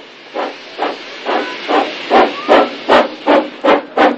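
Narrow-gauge steam locomotive No. 4 Edward Thomas, fitted with a Giesl ejector, exhausting in regular chuffs as it gets under way. The beats quicken from about two to nearly three a second and grow louder.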